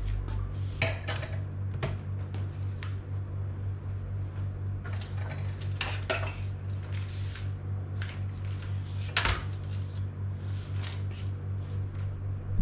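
Kitchen utensils clinking and knocking: a handful of sharp clicks and knocks from a knife and kitchenware being handled while working over a tray of baked sweet potatoes. A steady low hum runs underneath.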